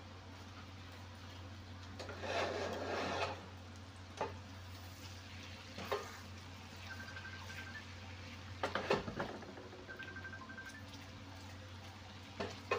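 Wooden spoon stirring butter melting in a stainless steel pan. The spoon knocks and scrapes against the pan a few times, with the loudest knocks about 9 s in. A faint sizzle lies underneath.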